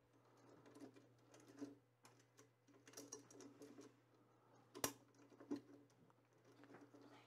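Faint clicks, taps and handling noise as spool holders fitted with T-nuts are worked into place on a 3D printer's aluminium frame extrusion, with one sharper click about five seconds in. A steady low hum runs underneath.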